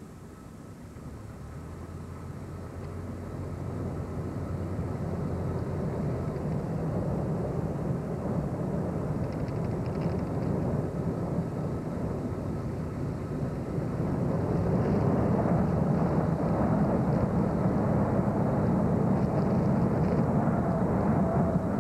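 Engine and road noise of a moving car, heard from inside the car as a steady low drone. It grows louder over the first few seconds and again about two-thirds of the way through.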